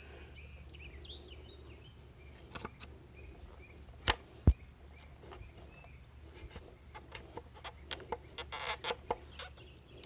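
Flathead screwdriver working at the dried-up spark plug tube seal in a valve cover, prying its metal band to work the seal loose. Two sharp metallic clicks come about four seconds in, and a cluster of clicks and a short scrape follows between about seven and nine seconds. Faint bird calls sound during the first few seconds.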